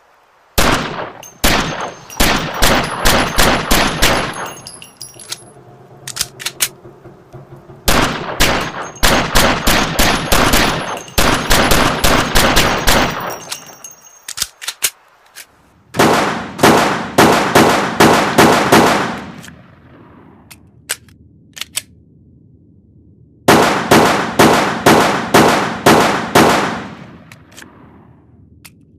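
Walther PPK pistol firing in four rapid strings of shots, about three shots a second, each shot followed by a ringing tail. A few faint sharp clicks fall in the pauses between strings.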